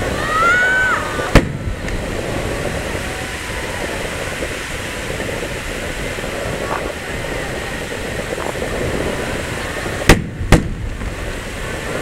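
Fireworks bursting at the sea surface: one sharp boom about a second in, then two booms half a second apart near the end, over a steady background hum.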